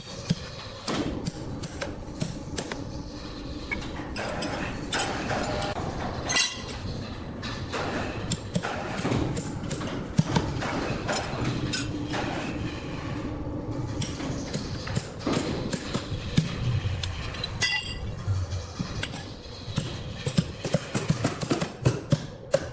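Irregular knocks, thuds and clinks of work in a sawmill, several a second, over a steady background of workshop noise.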